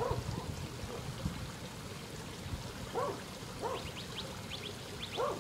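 Gusty storm wind rumbling on the microphone, with a few short animal calls about three, three and a half and five seconds in, and faint high chirps.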